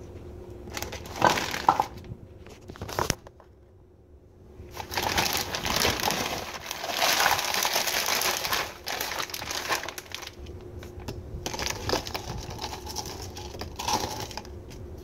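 A plastic bag of frozen mixed fruit crinkling as chunks of strawberry, peach, mango and pineapple are tipped and scooped into a plastic blender cup. There are a few sharp knocks about a second in, and a long stretch of rustling and crunching from about five to nine seconds.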